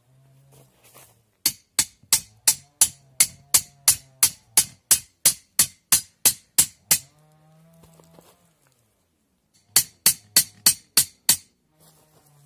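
Background music: a steady beat of sharp clicks, about three a second, over a low melody of held notes. The beat stops about halfway through and comes back briefly near the end.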